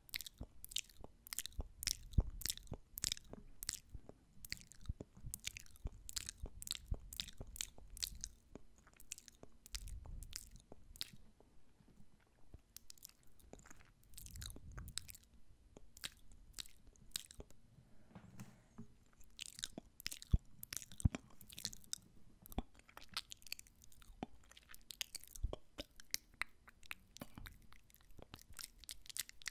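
Wet ASMR mouth sounds for 'ear eating': lip smacks, tongue clicks and sucking. They come as a rapid run of sharp wet clicks, thinning out for a few seconds midway.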